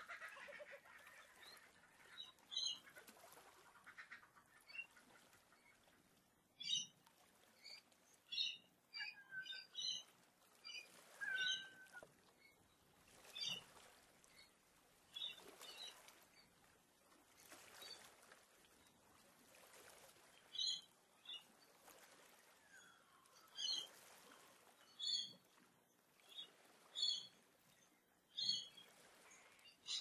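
Australian bush birds calling at dawn: scattered short, high chirps and calls one every second or two, with a couple of short falling whistles. A rapid pulsed call fades out in the first couple of seconds.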